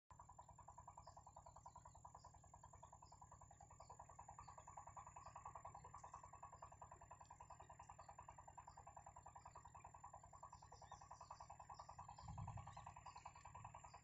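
Faint outdoor animal chorus: a steady, rapidly pulsing call with scattered short high chirps over it, and a soft low thump near the end.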